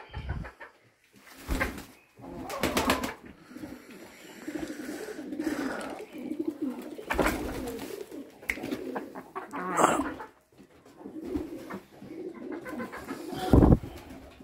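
Chickens making low, warbling clucks and grumbles, with scuffs and flaps as the birds are handled and scatter. There is a strong thump near the end.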